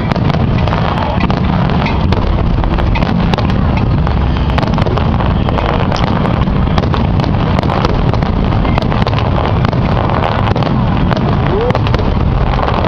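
Fireworks finale barrage: many overlapping bangs and crackles over a constant low rumble, with no break.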